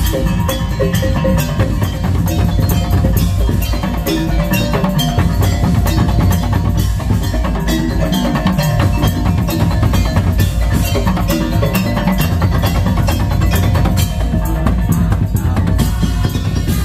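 Madurese tong-tong music: a street percussion ensemble of bamboo slit drums, drums and tuned metal percussion playing a fast, dense, continuous rhythm.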